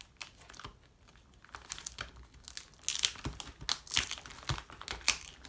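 Clear plastic wrapping on a CD album crinkling as it is handled and pulled off by hand. Irregular crackles start about a second and a half in and grow louder and denser.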